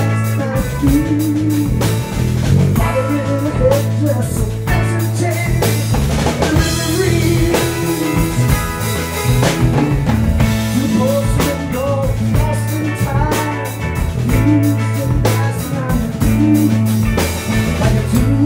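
Live rock band playing: electric guitars, bass guitar and drum kit, with a steady beat and sustained low bass notes.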